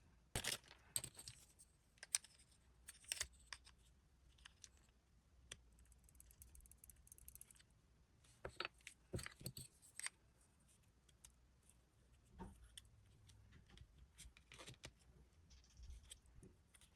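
Faint, scattered clicks and taps with brief crinkling: hands handling blind-box packaging and small plastic toy pieces.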